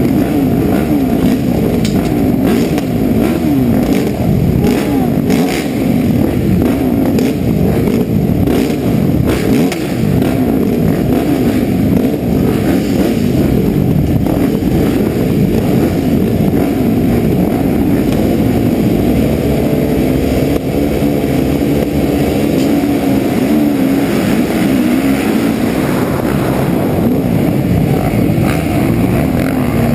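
A pack of motocross bikes, the rider's own Suzuki RM-Z450 four-stroke nearest, revving loudly on the start line with many engines overlapping, then pulling away at full throttle off the start partway through.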